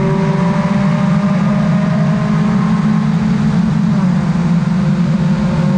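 VITA-01 race car's 1.5-litre four-cylinder engine running hard under load, heard from the onboard camera, at a steady pitch with a small shift about four seconds in.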